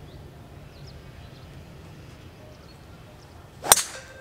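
Driver striking a two-layer, Surlyn-covered Vice Tour golf ball off the tee about three and a half seconds in: one sharp crack with a brief ring.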